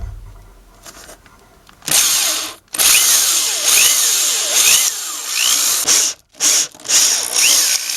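Electric hand drill boring a set-screw hole into a block of poplar. It starts about two seconds in and runs in three spells with two short pauses, its whine repeatedly rising and dipping in pitch.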